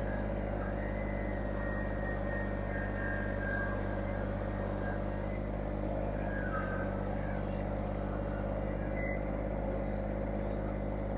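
An engine running steadily at a constant idle, with an even low hum that does not change.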